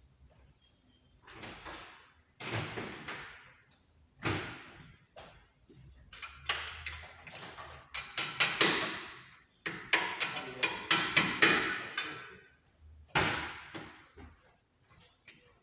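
Metal clanks and knocks of tools and parts worked by hand under a car on a lift, with a quick run of about half a dozen loud strikes past the middle.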